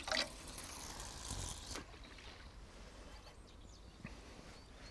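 Fixed-spool fishing reel briefly wound to take up slack line as a pike rod is set, a short click and then about a second and a half of hissing whir that stops, followed by faint small ticks.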